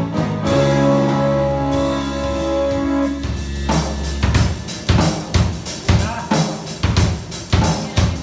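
Live band music: sustained keyboard chords over a held bass note. A little under halfway through, a drum kit comes in with a steady kick-and-snare beat, about two hits a second.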